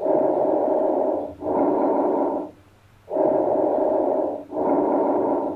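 Recorded bronchovesicular breath sounds, medium-pitched, between tracheal and vesicular breath sounds: two breaths, each an inspiration and an expiration of equal length separated by a brief gap, with a longer pause between the breaths.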